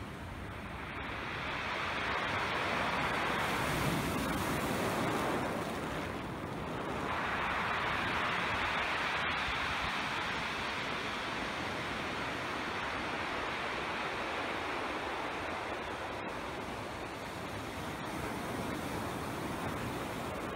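Surf breaking and washing up a beach of small rounded pebbles, with two louder surges of wash a couple of seconds and about seven seconds in.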